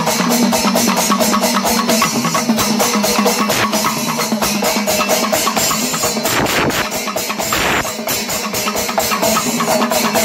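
Panchavadyam temple ensemble playing: timila and maddalam drums struck in a fast, even beat, with ilathalam cymbals ringing. The playing is steady and loud, and there is a brief swell of noise about six seconds in.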